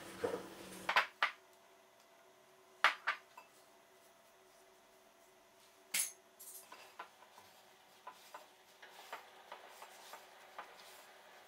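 A few sharp clicks and knocks against a glass mixing bowl as a silicone spatula works flour into cookie dough and is set aside, the loudest about six seconds in. Then softer, scattered ticks and crackles as hands knead the crumbly dough in the bowl.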